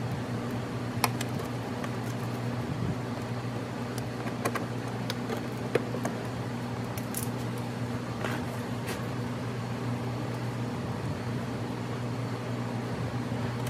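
Steady mechanical hum, like a shop fan, under a few sharp clicks and taps of plastic wheel-well liner parts being handled and fitted. The loudest clicks come about a second in and near six seconds, with a brief scraping rustle a little later.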